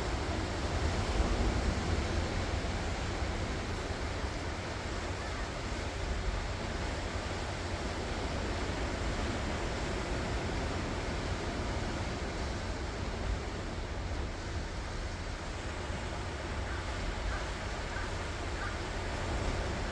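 Ocean surf: waves washing onto the shore in a continuous, steady wash, a little louder about a second in.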